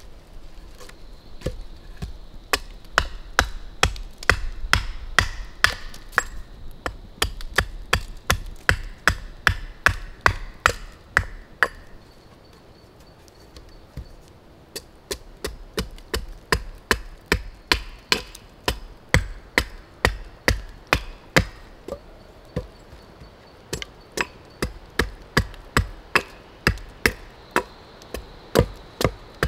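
A blade chopping into wood against a log, about two strikes a second, with a pause of a couple of seconds partway through. This is typical of roughing out a wooden spoon blank.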